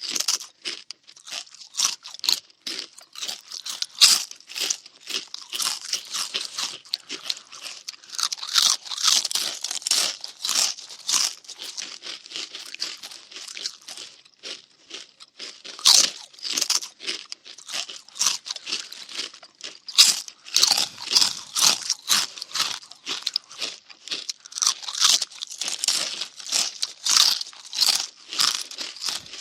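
Cartoon munching sound effect: rapid crunchy chewing bites, several a second, crisp and high-pitched.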